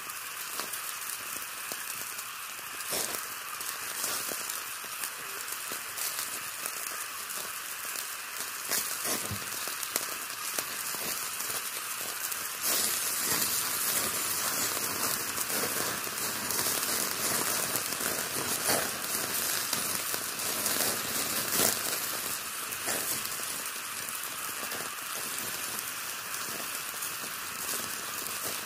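Meat sizzling over hot charcoal: a steady hiss with many small crackles and pops, a little louder in the middle.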